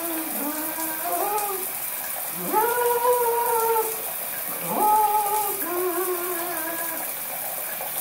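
Harlequin macaw singing in drawn-out sung notes that swoop upward at the start, the two longest held for about a second each near the middle, with shorter wavering notes before and after, over the steady hiss of running shower spray.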